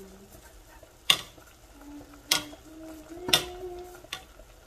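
A cooking utensil knocking against a pot of boiling broccoli, three sharp taps about a second apart.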